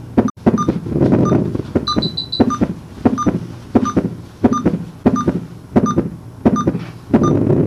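Regular electronic beeping, about three beeps every two seconds, with a quick run of four higher beeps about two seconds in and a low swelling hum between the beeps.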